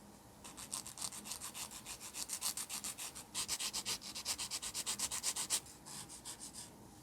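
Rapid back-and-forth strokes of an abrasive on the plastic V-fin of a Gundam model kit, shaping it to a sharper point. The strokes come about four or five a second, with a short break after about three seconds, and get fainter near the end.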